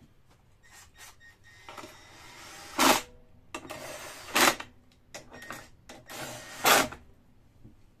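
Fresh gasoline poured from a gas can into the lawn mower's fuel tank: splashing in spells, with three louder bursts a second or two apart.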